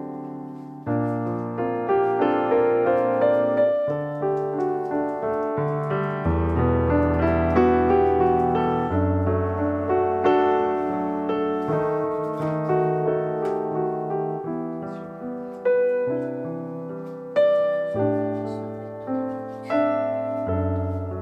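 Background piano music: slow, gentle chords and melody notes, each struck and left to ring.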